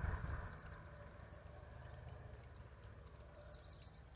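Faint steady low rumble, with a bird's short high chirps from about a second in.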